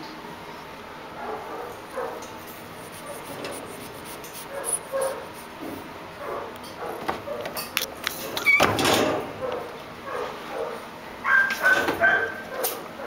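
High-pitched animal cries, short yelps and mews coming and going, with the loudest cry about halfway through and a few thin, held cries near the end. Sharp clicks and rattles of the metal wire cage door run among them as kittens climb the bars.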